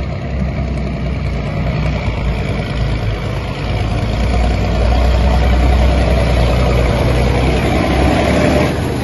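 Alvis Stalwart 6x6 amphibious truck's Rolls-Royce B81 straight-eight petrol engine running as the truck drives out of the water and up the bank, with water churning off its wheels. Both get louder from about four seconds in, then drop near the end.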